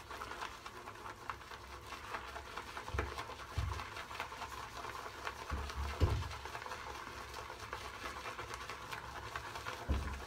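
Shaving brush whipping shaving cream in a bowl: a fine, steady crackling squelch of lather that has come up thick and creamy, with a few dull knocks along the way.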